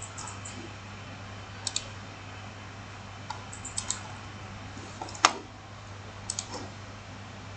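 Computer mouse clicking while drafting in CAD: scattered short clicks, some in quick pairs, with one louder click about five seconds in, over a steady low hum.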